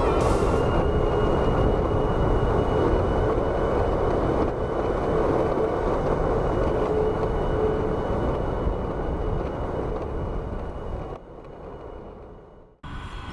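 Electric longboard rolling fast over asphalt, heard from a board-mounted camera: a steady rumbling hiss of wheels on the road and wind on the microphone, with a faint high steady tone. About 11 seconds in it drops sharply and fades almost to silence.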